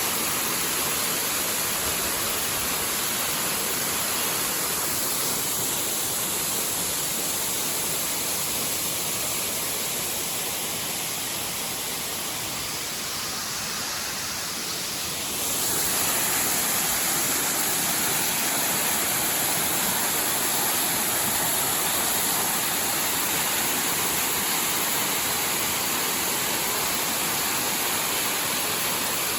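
Waterfall: the steady rush of falling water, dipping a little in level for a while and then jumping suddenly back up about halfway through.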